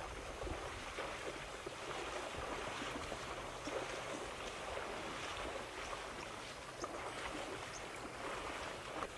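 Shallow river water splashing and swishing continuously as giraffes wade through it.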